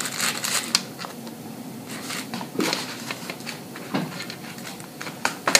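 Hands picking through a platter of crab legs, corn and potatoes: scattered small clicks and rustles of food and shells being handled.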